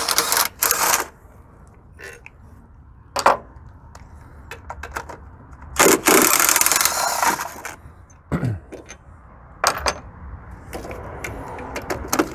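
Ratchet wrench clicking in several separate bursts as the 15 mm engine-mount bolts are worked loose, the longest run about six seconds in, lasting over a second.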